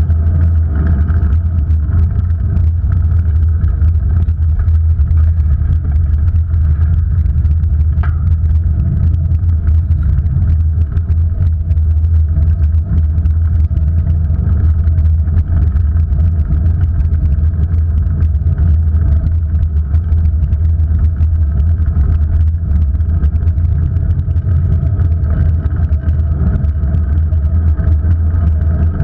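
Steady, loud low rumble of wind buffeting an action camera's microphone while moving along a street, mixed with road noise.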